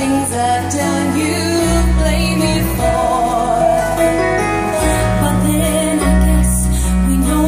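Female vocalists singing a slow ballad live in concert, backed by a band with sustained bass notes and drums.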